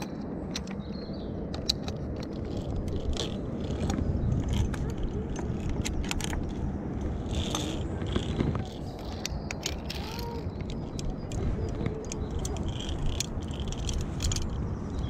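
Climbing-harness carabiners and hardware clinking and scraping against steel safety cable and rope as the climber moves along a ropes-course element: irregular metallic clicks throughout, over a low rumble of handling noise.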